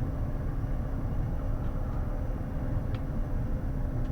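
Steady low rumble of cockpit noise in a Bombardier Challenger 350 business jet taxiing after landing, with a faint steady hum and one brief click about three seconds in.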